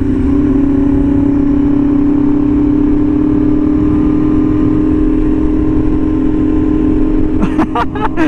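Superbike's inline-four engine running at steady revs while cruising, with wind and road rumble on the microphone. The steady note breaks briefly near the end.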